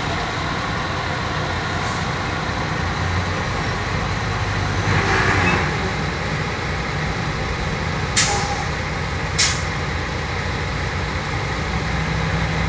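Truck running with steady road noise. A brief hiss comes about five seconds in, and two short sharp sounds about a second apart come about eight seconds in.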